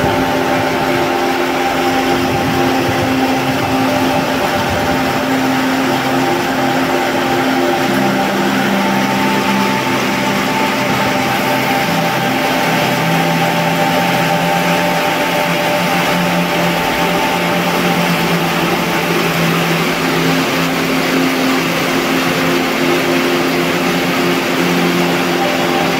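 Heavy rain pouring down onto corrugated metal roofs and palm foliage, a steady dense hiss. A steady hum of several held tones runs underneath.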